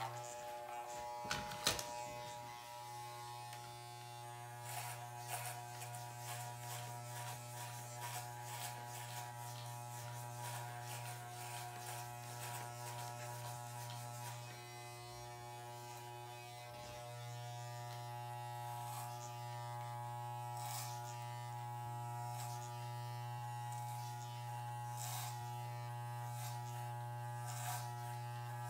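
Corded Wahl electric hair clippers with a number 5 guard buzzing steadily while cutting hair at the back of the head. Short scattered crackles run through the buzz as the blades pass through the hair.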